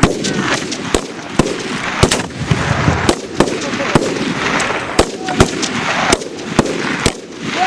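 Gunfire on a training range: sharp single shots at irregular intervals, roughly two a second, over steady outdoor noise.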